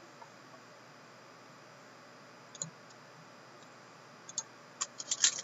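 Mostly quiet, with a few faint clicks, then a quick run of sharp crinkling clicks near the end as a foil O-Pee-Chee Platinum hockey card pack is handled.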